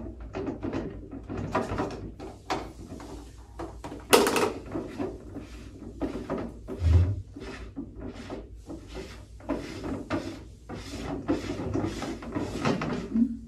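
Filter sump on a water-filtration cart being handled and screwed by hand: a run of irregular scraping, rubbing and clicking, with a sharp click about four seconds in and a dull thump about seven seconds in.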